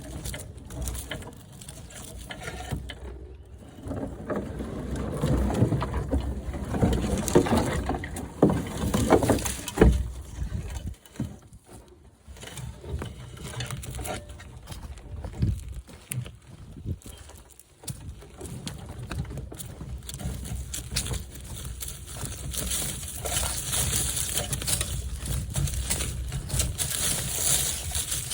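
Wheelbarrow being pushed over rough ground, heard from a camera mounted on its handlebar: an uneven rumble and rattle with scattered knocks, stopping briefly twice.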